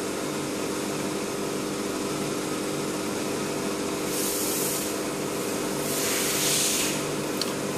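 20 W Raycus fiber laser marking machine running while it engraves stainless steel: a steady hum with several steady tones, and two short bursts of high hiss about four and six seconds in.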